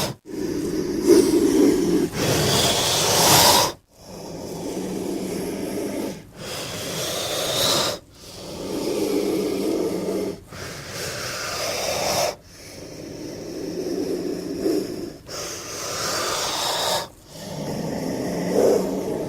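Creature sound effects for a giant snake (Titanoboa): a string of about eight breathy hisses and rumbling snorts, each lasting one to three seconds, with short breaks between them.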